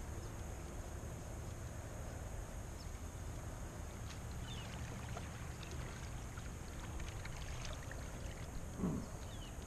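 Light water splashing and dripping around a kayak as a hooked bass is brought up beside it, with one louder splash near the end as the fish thrashes at the surface.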